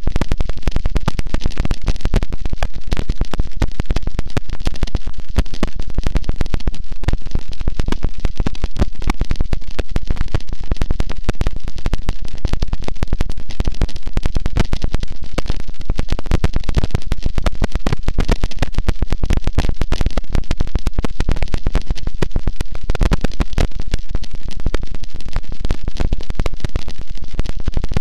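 Harsh noise wall: a loud, unchanging wall of dense distorted static with a fine crackling texture and a heavy low rumble.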